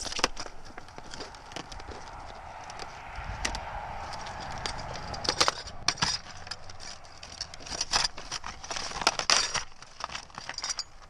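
A slide bolt's stiff retail packaging being cut and pried open: repeated sharp cracks and snaps, with a stretch of scraping and rubbing in the first half.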